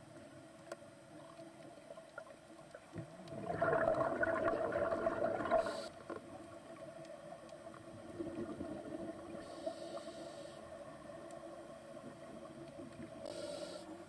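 Underwater breathing of a scuba diver on a regulator. A few seconds in, an exhalation of bubbles gurgles for about two seconds. Softer hisses of inhalation come around the middle and near the end, over a faint steady hum.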